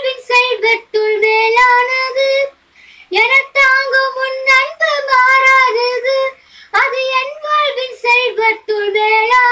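A girl singing solo and unaccompanied, in long held phrases with short breaks for breath about two and a half and six and a half seconds in.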